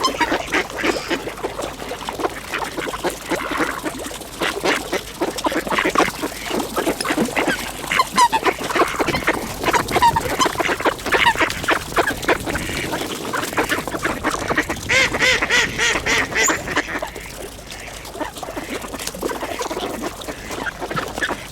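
A crowd of mallard ducks quacking over and over, many calls overlapping without a break, as they scramble for birdseed at a hole in the ice.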